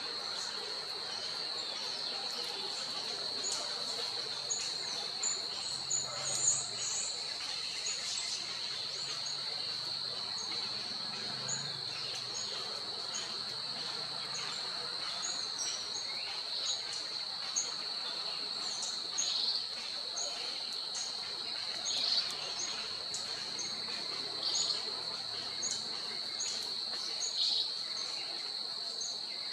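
Insects droning steadily at a high pitch, with short high chirps repeating about once a second and a few louder bird chirps scattered through.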